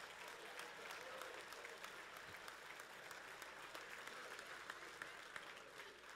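Congregation clapping and laughing in a large hall, faint and slowly dying away.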